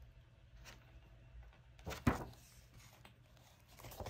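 Paper catalog pages being handled and turned, with one short, sharp rustle about two seconds in and more paper rustling starting near the end. Otherwise only faint handling noise.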